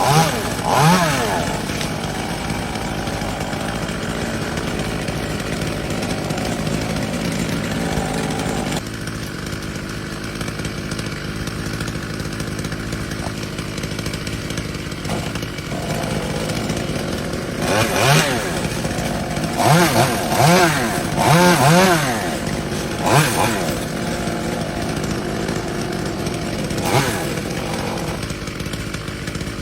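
Chainsaw running steadily for the first part, its sound changing about nine seconds in. In the second half the engine is revved up and down several times in quick succession.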